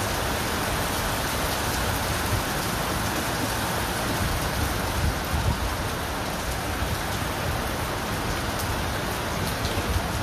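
Heavy rain pouring onto wet stone paving: a steady hiss.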